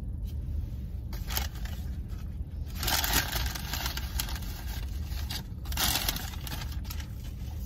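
Rustling and scraping of things handled while rummaging for a napkin, in three bursts about one, three and six seconds in, the middle one the loudest, over a low steady hum inside the car.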